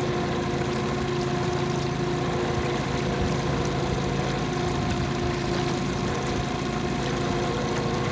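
Motor of a coaching launch running steadily: an even drone holding a few constant pitches, with no change in speed.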